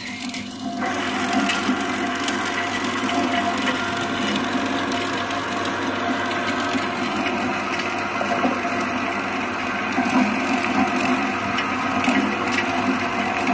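Industrial chopping machine running, a dense, steady crackling noise over a machine hum, as of material being chopped. It gets louder about a second in.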